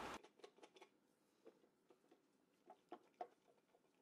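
Near silence, with a few faint soft clicks from a lidded glass jar of radish and carrot pickles being turned over in the hand to coat them in pickling liquid; the most distinct click comes about three seconds in.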